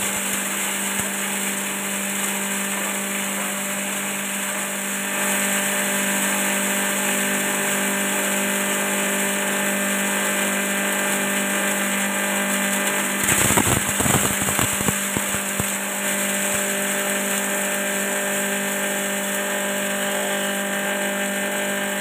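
Multifunction chopper driven by a 2 hp electric motor running steadily with a constant hum and dense whirring, its blades chopping plant material as it is fed. Partway through, a short burst of clattering knocks as a batch goes through the blades.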